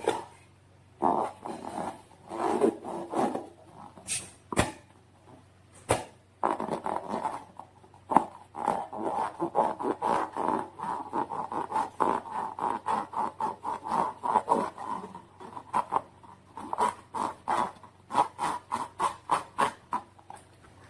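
Slime being squeezed and worked by hand: wet, sticky squelching and crackling in quick irregular pulses. There are two sharp clicks in the first few seconds, and a faster run of short squelches near the end.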